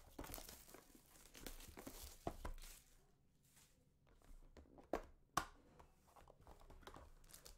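Plastic shrink-wrap being torn and crinkled off a Break Kings trading card box, with the box handled and opened. About five seconds in come two sharp taps or clicks.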